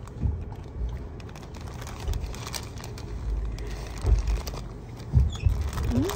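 A paper sandwich wrapper crinkling and rustling as it is handled during eating, with several low thumps, over the low steady rumble of a train carriage.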